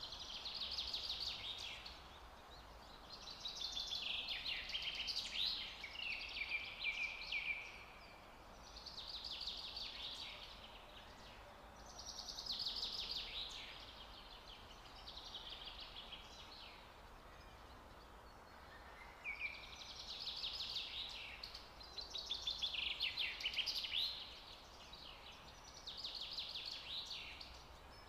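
A bird calling in repeated bursts of rapid, high chirps, eight or nine runs of a second or two each with short gaps between, over a steady faint background hiss.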